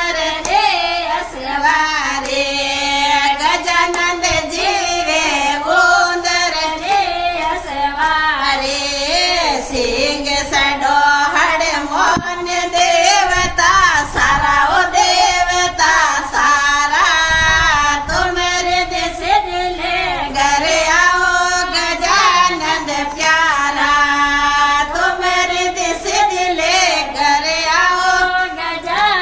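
Several women singing a Marwari devotional bhajan to Shiva together, with hand claps keeping time.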